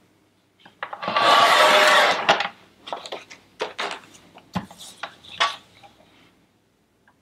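Sliding-blade paper trimmer cutting thick paper: one noisy stroke of a little over a second as the cutting head runs along the rail, starting about a second in. It is followed by several short clicks and knocks as the clamp bar is lifted and the paper is repositioned.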